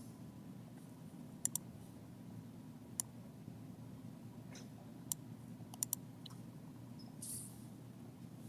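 Computer mouse clicking: a quick double click about a second and a half in, single clicks near three and five seconds, and another double click near six seconds, over a faint low hum.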